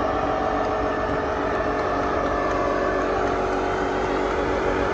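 Pickup truck engine held at steady high revs, its rear tyres spinning in place against the pavement in a burnout.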